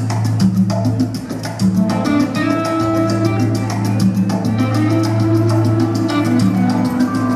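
Salsa music with an even percussion beat over a steady bass line and melody.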